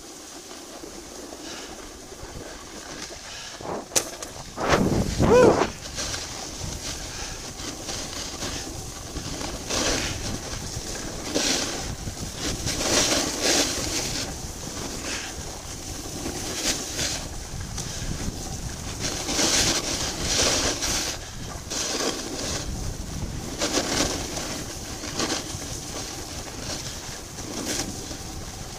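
Skis hissing and scraping over groomed snow, with wind rushing over the microphone during a fast run; the scraping swells with each turn every second or two. A louder gusty burst comes about five seconds in.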